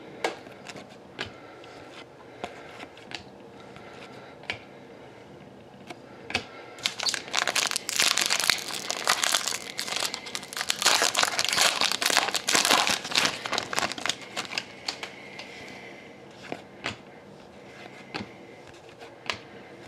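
Upper Deck Series 1 hockey card pack wrappers crinkling and tearing as packs are opened, the crackling densest and loudest through the middle. Scattered light clicks and taps of cards being handled come before and after.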